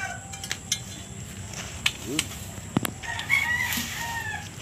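A rooster crows once, a drawn-out call of about a second starting some three seconds in. Earlier there are a few sharp clicks and knocks.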